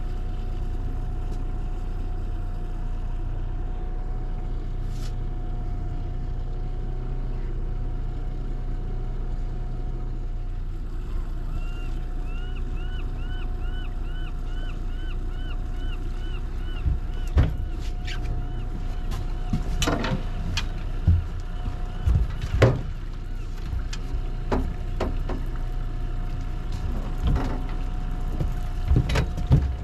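Honda outboard motor running steadily at trolling speed, a low hum with a faint steady whine. A few seconds of short repeated chirps, about three a second, come in near the middle, and in the second half several sharp knocks and thumps on the boat as gear is handled during the fish fight.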